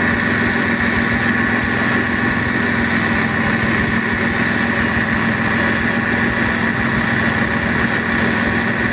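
Mitsubishi Galant's engine idling steadily, with a steady high-pitched tone running over the hum, during an R134a air-conditioning recharge on a compressor said to growl.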